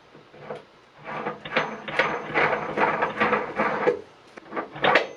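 Small metal parts rattling and clicking in quick irregular runs as they are handled, with a cluster of clicks near the end.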